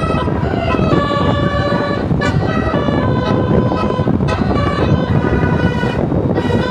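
A tour bus's Basuri telolet musical horn playing a melody of short held notes that step from pitch to pitch, over a steady low rumble.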